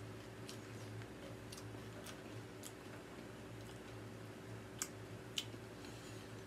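Sparse, crisp crunches and crackles of tortilla strips as nachos are chewed and the chips on the plate are picked through by hand. The two sharpest come about five seconds in, over a steady low hum.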